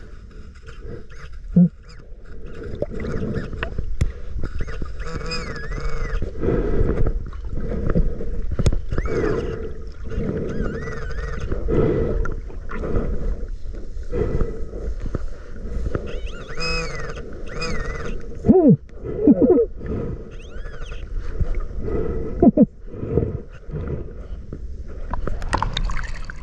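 Muffled underwater sound of seawater moving and sand being stirred around a submerged microphone, with irregular gurgles and short gliding bubble-like tones.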